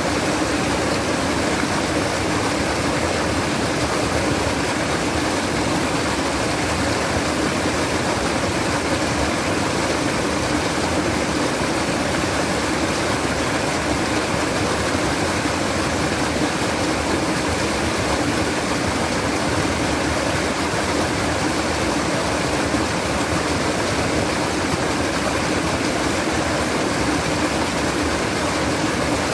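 Flowing water babbling steadily, an even, unbroken rush with no pauses or separate splashes.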